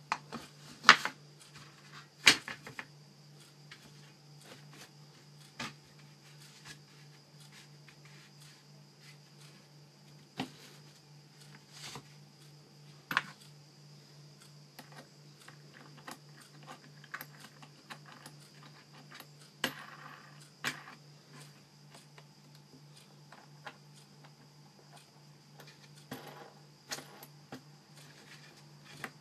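Scattered metallic clicks and taps of small screws and a screwdriver being handled on a speaker baffle, the loudest about one and two seconds in, over a steady low electrical hum.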